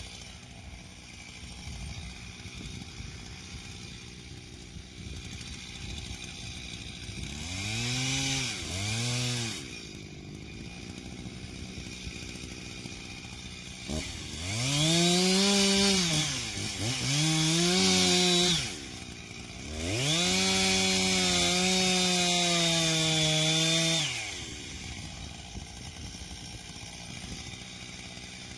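Two-stroke chainsaw idling, blipped twice about eight seconds in, then run up to full throttle in three bursts. The last burst is held about four seconds as it cuts wood, before dropping back to idle.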